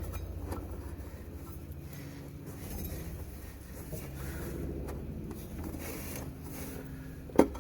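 A new CVT drive belt being worked by hand around the secondary clutch sheave of a Yamaha RMAX 1000, with rubbing and creaking as the belt is forced past the housing. A single sharp knock comes near the end.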